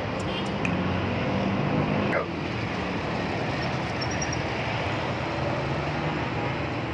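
Steady street traffic noise, with a vehicle engine's low hum that drops away about two seconds in.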